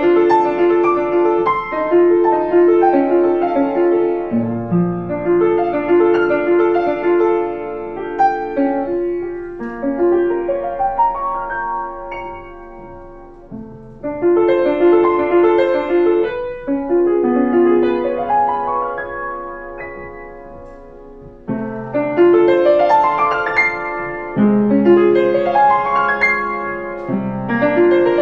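Upright piano played solo: quick runs of notes that fade to quieter stretches twice in the middle, then climbing, sweeping runs near the end.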